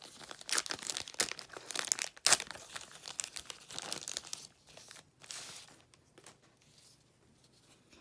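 A trading-card pack wrapper being torn open and crinkled by hand: dense crackling and tearing for the first four seconds or so, a short burst after five seconds, then dying away to faint rustles.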